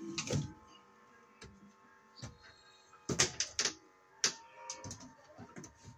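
Small tools and fixture hardware being handled: a few sharp clicks and knocks, most of them bunched about three seconds in.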